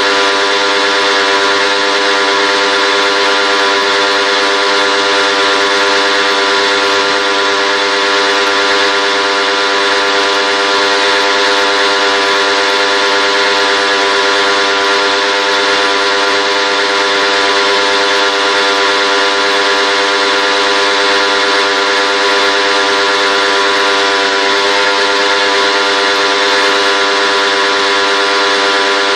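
A motor-driven machine running continuously, with a constant pitched hum and a steady hiss over it.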